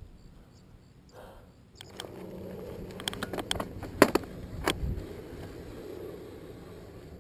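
Kona mountain bike setting off on asphalt: after a quiet start, tyre and wind noise from riding comes in about two seconds in and stays steady, with a run of sharp clicks and knocks from the bike in the middle, the loudest about four seconds in.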